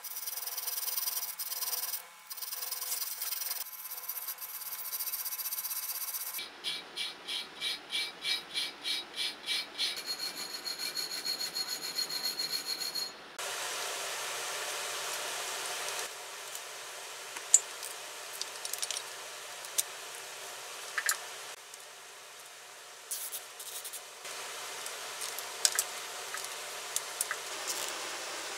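Hand wire brush scrubbing rust off small steel parts, with a stretch of quick back-and-forth strokes about three a second. Later, quieter handling of the motor's lead wires at the stator, with light scraping and a few sharp clicks.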